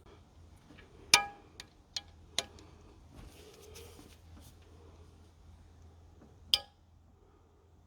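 A few sharp metallic clicks and clinks from a wrench on the 10 mm bolts holding the diesel injectors, as they are cracked loose; the loudest comes about a second in, three lighter ones follow within the next second and a half, and another strong one comes near the end.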